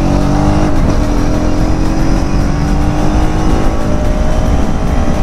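Kawasaki Z900's inline-four engine on its stock exhaust, accelerating hard. Its note breaks briefly about a second in, then climbs steadily in pitch over heavy wind rush on the microphone.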